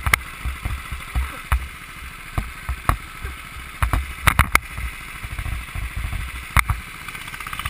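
Go-kart running on a wet track, heard from its onboard camera: a low rumble and wind buffeting on the microphone, with scattered sharp knocks and clicks at irregular times.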